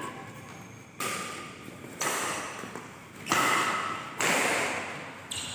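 Badminton rackets striking a shuttlecock in a fast rally: five sharp hits about a second apart, each echoing in the large hall.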